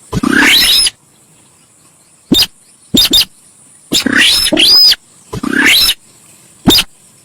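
Sintar sawah bird calling loudly in repeated bursts, as in a bird-lure recording. Longer notes arch up high and fall back; shorter chips come between them, about seven calls in all.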